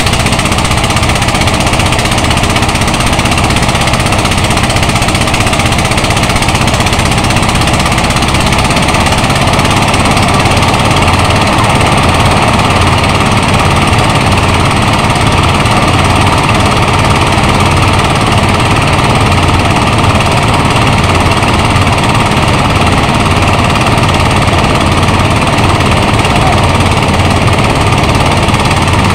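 Engine-driven rice thresher running loud and steady, its drum threshing rice stalks that are fed into it by hand.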